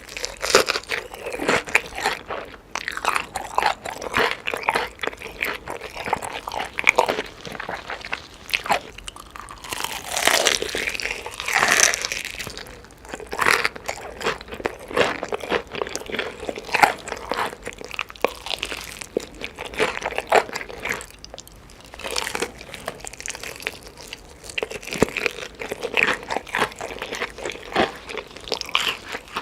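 A person biting and chewing chicken, with repeated crunching and wet chewing sounds coming in irregular bursts.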